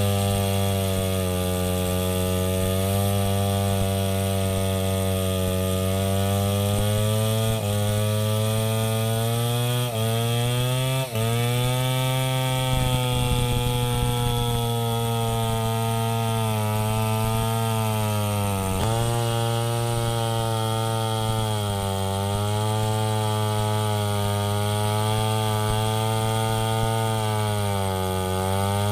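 Two-stroke chainsaw running at high revs, cutting through a large log. Its pitch sags under load several times and recovers, with brief stutters about ten and eleven seconds in.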